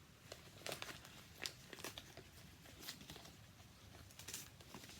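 A mail package being opened by hand, its wrapping crinkling faintly with scattered short crackles and a little tearing.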